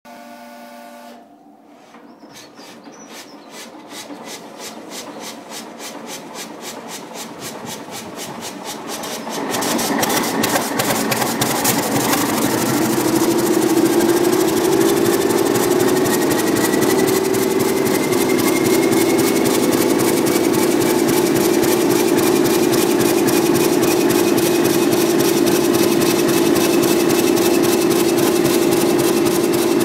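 Class 31 diesel locomotive's English Electric 12SVT V12 engine starting up. It turns over with a run of regular beats, catches about nine seconds in and comes up much louder, then settles to a steady idle with a faint whine that slowly rises in pitch.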